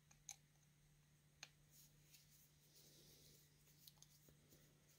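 Near silence with a faint steady low hum and a few faint, short metallic clicks from a screwdriver working the adjustment needle screws of a small chainsaw carburetor, two in the first second and a half and a couple more near the end.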